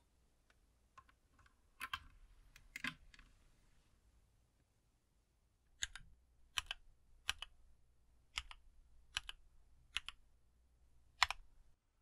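A few clicks as a USB-C cable is plugged into a mechanical keyboard, then seven single keystrokes on the mechanical keyboard, pressed one at a time about a second apart.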